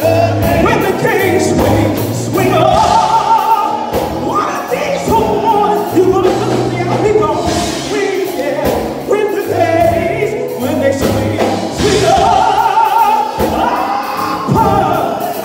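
A woman singing a gospel song into a handheld microphone, amplified through the church sound system, over sustained low accompaniment notes.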